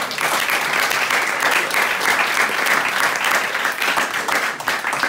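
Small audience applauding, dense hand-clapping that dies away near the end.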